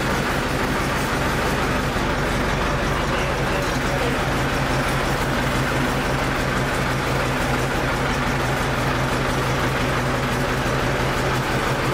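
Machinery running steadily nearby: a constant low mechanical drone and hum that does not change in speed.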